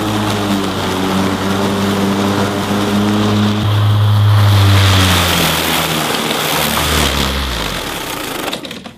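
Gas lawn mower engine running steadily, then slowing, its pitch falling over the last few seconds as it winds down.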